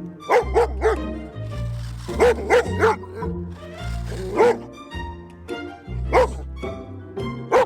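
Background music with a steady bass line, over which a dog barks in quick runs of two or three barks, repeated several times. The barks are the loudest sounds.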